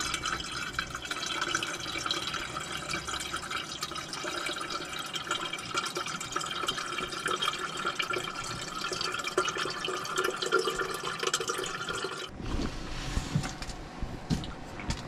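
Water running into the upper chamber of a stainless-steel Berkey gravity water filter, a steady filling stream that stops suddenly about twelve seconds in, followed by a few faint knocks.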